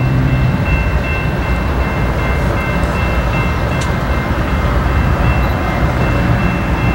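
BNSF diesel-electric freight locomotive approaching, its engine making a loud, steady low rumble.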